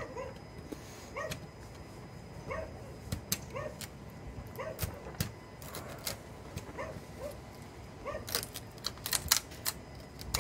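A dog barking over and over, a short pitched bark about every half second to second. Near the end comes a quick run of sharp clicks as a utility knife slices through the last thin plywood tabs.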